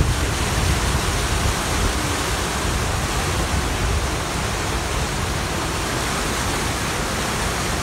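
Turbulent whitewater of the Niagara River at Niagara Falls rushing and churning past a stone edge: a loud, steady rush with no let-up.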